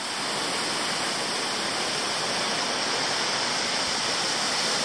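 A waterfall of about 20 metres at low flow, its thin streams dropping onto rocks and into a pool: a steady, even rush of falling and splashing water.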